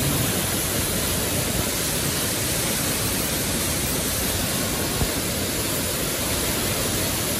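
Waterfall plunging into a pool: a steady, dense rush of falling water, with one brief knock about five seconds in.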